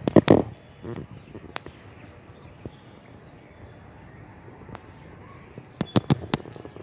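Outdoor ambience: a faint steady hiss broken by sharp crackling clicks, a cluster right at the start and another about six seconds in, with a few faint high chirps.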